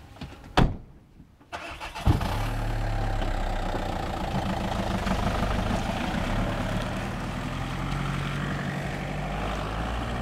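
A car door slams shut, then about two seconds in a Volkswagen Golf's engine starts and runs steadily as the car pulls away.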